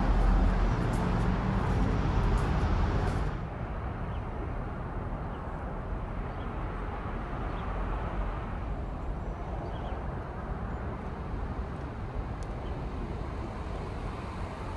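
City road traffic: a steady wash of car noise, louder and fuller for the first three seconds or so, then dropping to a quieter, even level.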